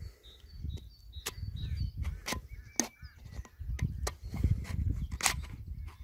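Thin plastic drinks bottle crackling and clicking as a wooden stick is pushed through holes in its sides, with about half a dozen sharp clicks over a low handling rumble.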